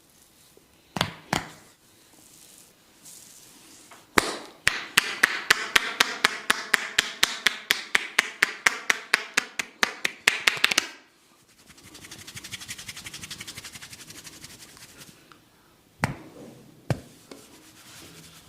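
Massage percussion: a barber's hands strike in a rapid, even run of sharp slaps, about six a second for nearly seven seconds, then go on as a softer patter for a few seconds. Single sharp cracks come twice about a second in and twice near the end.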